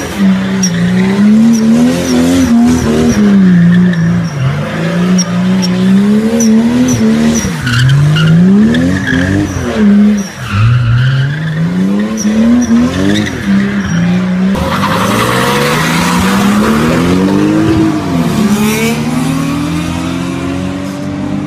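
Car engine revving up and down again and again during a drift, with tyres squealing and skidding on asphalt. The tyre squeal is loudest about two-thirds of the way through, and the engine settles to a steadier note near the end.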